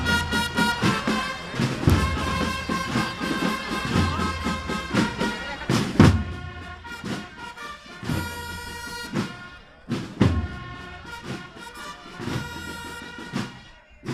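Brass band playing a slow processional march, with a heavy bass drum stroke about every two seconds under held chords.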